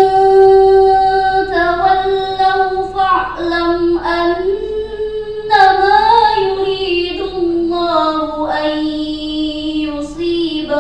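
A teenage girl reciting the Qur'an in the melodic murattal style, her voice holding long notes that step and slide between pitches, with short breaks between phrases.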